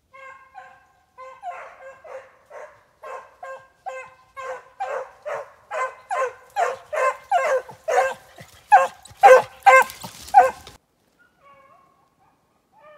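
Hunting hounds baying as they run a snowshoe hare's track: a rapid run of barks, about two a second, growing louder, then stopping suddenly about eleven seconds in.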